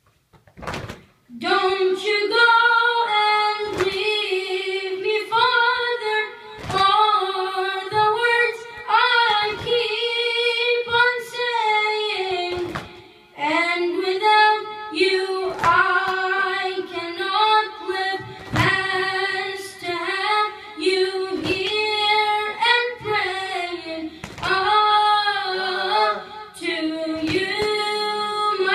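A boy chanting a latmiya, a Shia mourning lament, unaccompanied into a microphone, in long, held melodic phrases with a short break about halfway through. Under the voice runs a steady slapping beat about every second and a half: latmiya chest-beating.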